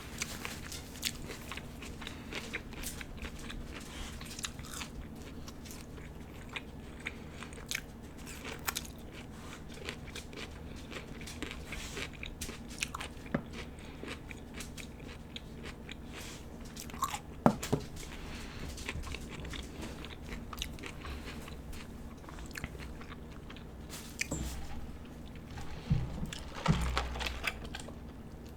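Close-up chewing and biting of Burger King food, with frequent short wet mouth clicks and crunches. A sharper click comes a little past halfway, and a few low thumps near the end.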